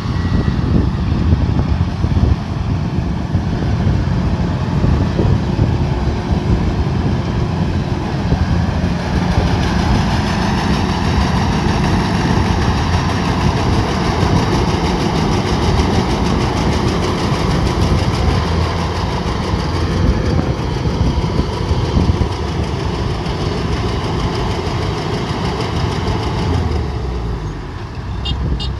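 Diesel engine of a harvesting machine running steadily, with the dense clatter of its machinery; the sound changes abruptly near the end.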